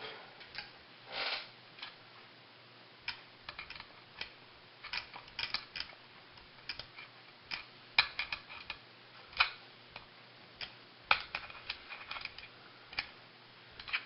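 Scattered light clicks and taps of small metal recoil-starter parts being handled and fitted, irregular and a few of them sharper.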